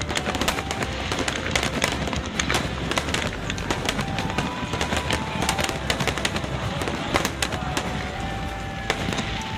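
Aerial fireworks bursting in quick succession: many sharp bangs and crackles through the whole stretch, with music playing underneath.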